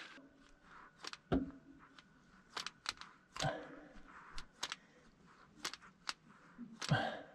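Scattered light clicks and clinks, about a dozen, irregularly spaced: a hand-lever grease gun being handled and worked against the roof-lift springs under a pop-up camper's frame.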